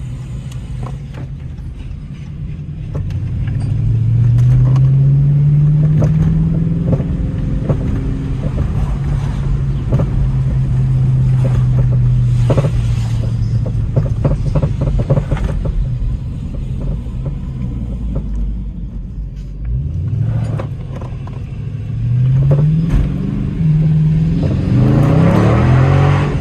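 2021 Dodge Charger Scat Pack's 6.4-litre HEMI V8 driving. Engine pitch climbs about four seconds in and holds steady at cruise, dips around twenty seconds in, then rises in a quick series of climbs near the end as it accelerates through the gears.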